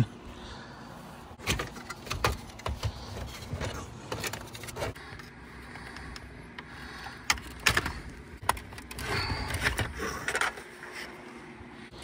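Scattered clicks, knocks and light rattling from hands and tools working loose the plastic dash trim inside a car.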